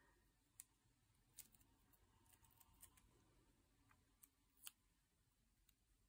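Near silence with a few faint, sharp clicks and small crinkles of adhesive tape being handled and pressed onto a paper journal page, the loudest click a little before the end.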